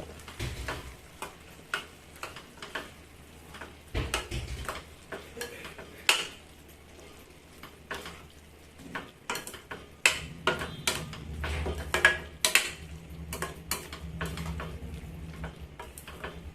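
A spoon stirring a pan of cooking tomato relish, scraping and knocking irregularly against the pan as the chilli powder is worked in, with a light sizzle. The knocks come thicker about ten seconds in, when a low hum also starts.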